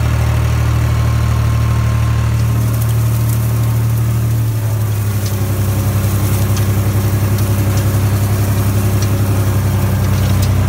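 International Harvester 485 tractor engine running steadily under load while pulling a Hesston 3710 hay tedder. Its note shifts about halfway through and takes on a quicker pulsing beat, with faint light ticking above it.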